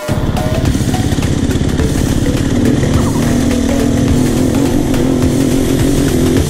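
Enduro dirt bike engine buzzing under way on a trail, its note climbing slowly through the second half.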